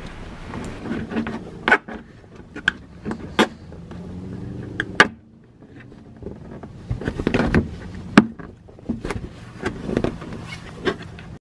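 Plastic wheel-well liner being flexed and handled, with a string of sharp clicks and snaps as the ABS wheel-sensor wire's clips are pushed into the holes in the liner.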